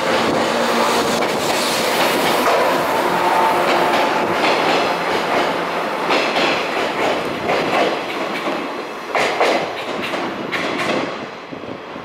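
415-series electric train pulling out and running past close by, its wheels clacking over the rail joints. The sound fades in the last few seconds as the end of the train goes by.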